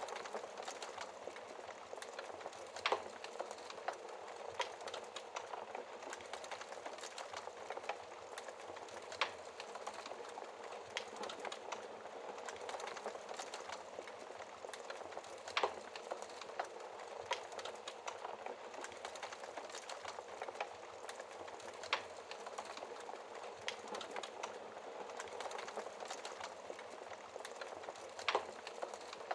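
Wood fire in a fireplace crackling steadily: a continuous hiss of small crackles, with a louder sharp pop about every six seconds.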